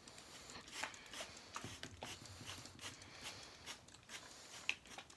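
Faint, scattered small clicks and light rustling, the sharpest click near the end.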